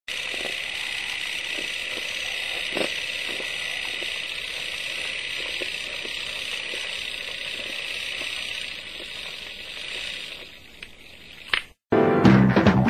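Old-film soundtrack hiss with scattered crackles and pops, fading out about ten seconds in. A single sharp click, a brief silence, then music with drum hits starts in the last second.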